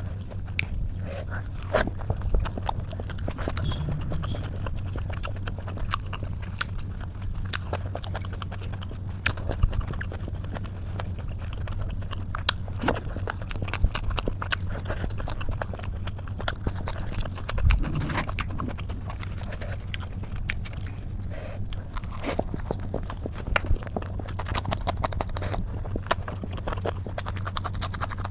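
Close-miked chewing and mouth clicks, irregular and continuous, over a steady low hum.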